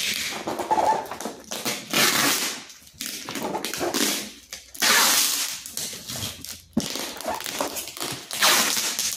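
Clear plastic packing tape being pulled off its roll in long rasping rips, about every three seconds, and pressed onto a cardboard box, with the light rustle and bumps of the box being handled in between.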